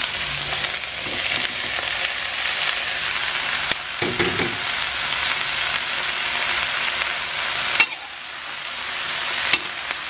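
Olive oil sizzling steadily in a pan as chopped onions and green chilies are stir-fried with a metal spatula, with small scraping ticks. Crispy fried tofu cubes go in and are tossed with them. A sharp click comes about eight seconds in, after which the sizzle is briefly softer.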